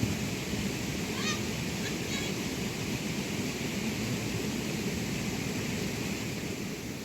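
Steady rain falling, an even hiss, with a few faint short chirps about one and two seconds in.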